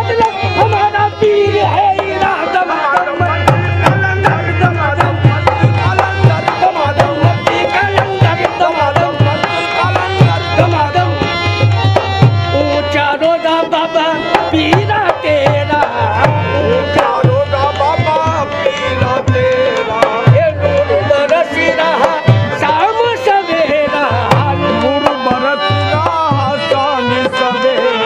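Qawwali music: a hand-played barrel drum beats a quick, steady rhythm under a wavering melody line.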